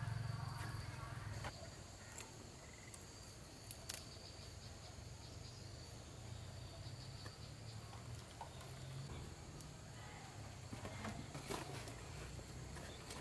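Faint, steady, high-pitched insect calling, with a low rumble underneath and a few light clicks now and then.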